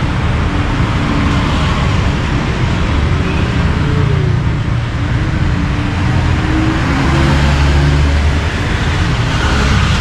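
Road traffic noise: a steady, loud rumble of motor vehicle engines, with an engine note rising and falling around the middle.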